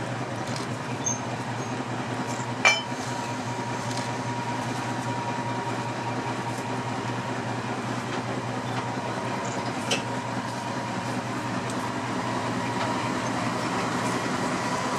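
Class 14 diesel-hydraulic shunting locomotive running steadily at low speed, a low engine drone with a thin steady whine over it. Two sharp metallic clinks cut through, the louder about three seconds in and another near the ten-second mark.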